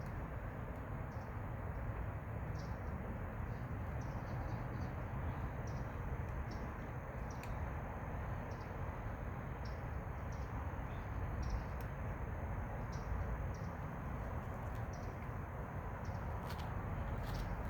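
Outdoor ambience: a steady low rumble, with short high chirps every second or so at irregular intervals and a faint steady high tone.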